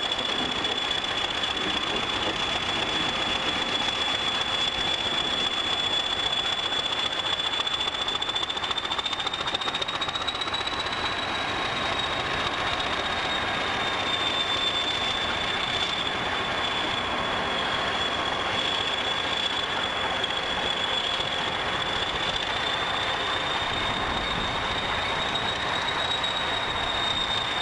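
English Electric Class 20 diesel locomotive running as it moves slowly along the track, a steady engine noise with a high whistle that wavers slightly in pitch.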